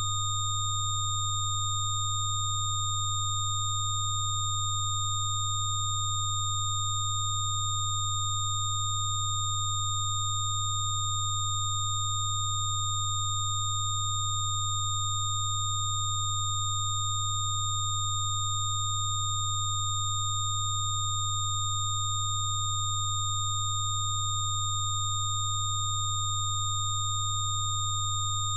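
Synthesised Rife-frequency tones: several pure electronic tones held at once. The loudest is a low hum, with fainter steady high whistles above it, and none of them changes in pitch or level.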